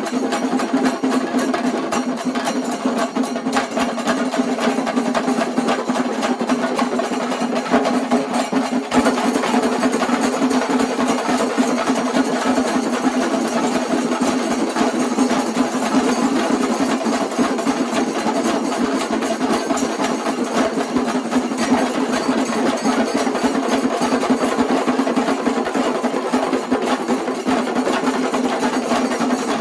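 Shingari melam: many chenda drums beaten fast with sticks, with ilathalam hand cymbals clashing, two troupes drumming against each other in a face-off. The beating is dense and continuous, without a break.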